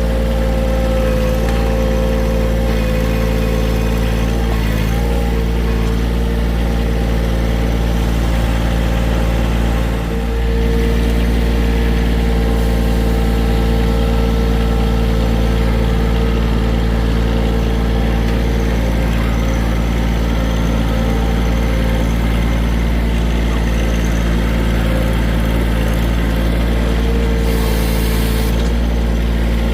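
John Deere 1023E sub-compact tractor's three-cylinder diesel running steadily while it works. A higher steady whine rides on the engine note, stops about two-thirds of the way through and comes back near the end.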